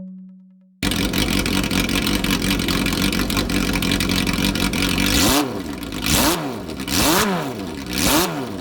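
Vehicle engine with steady running and road noise that starts suddenly about a second in, then revs up and down four times in quick succession, about a second apart.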